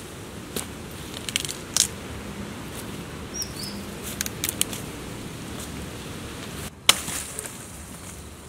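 Sharp snaps and crackles of cassava roots and dry stems being broken and pulled from the soil by hand, amid rustling dry leaf litter, with one loud crack just before the end. A brief high chirp about halfway through.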